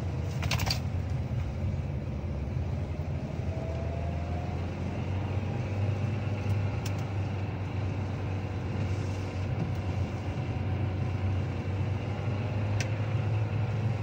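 The 2024 Kia Sportage Hybrid's petrol engine under load while accelerating uphill, heard from inside the cabin as a steady low drone with a faint higher tone above it. This is the constant, horrible noise the car makes only while the engine is pulling, and it stops when acceleration eases.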